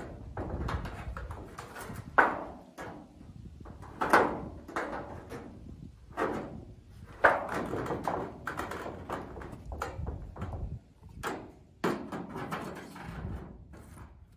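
Plastic drain pipe and fittings being handled and pushed into place: several sharp knocks amid scraping and rustling.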